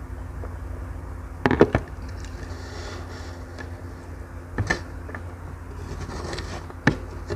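Close-miked eating and drinking sounds: a cluster of sharp knocks and clicks about a second and a half in, as the glass jug is set down on the table after drinking. Then come single mouth clicks while chewing rice, near the middle and near the end, over a steady low hum.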